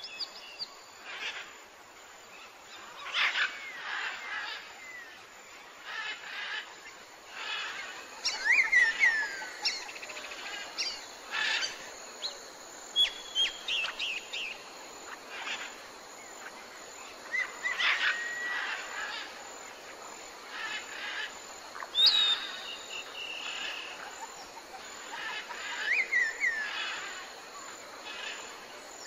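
Small birds chirping and whistling outdoors: scattered short calls and brief rising-and-falling whistles, over a faint steady hiss.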